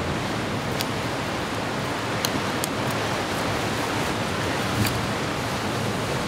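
Steady rush of ocean surf washing against the rocks, with a few faint clicks scattered through it.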